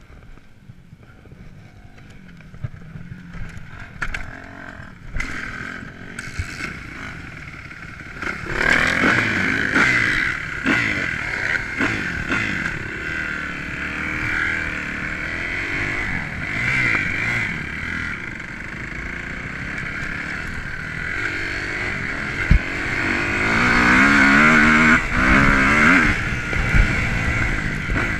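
Kawasaki KX250F four-stroke single-cylinder motocross engine heard from an onboard camera while riding: fairly quiet for the first several seconds, then from about eight seconds in revving hard, its pitch rising and falling again and again as the throttle is worked, with chassis clatter over the dirt.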